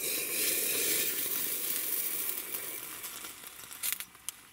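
Steady hiss of freshly boiled water in a camp pot, fading gradually, then a couple of short clinks and water poured from the pot into a cup near the end.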